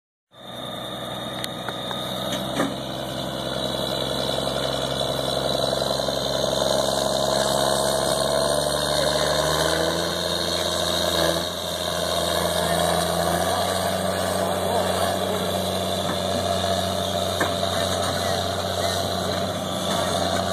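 A vehicle engine running steadily, its pitch shifting about ten seconds in.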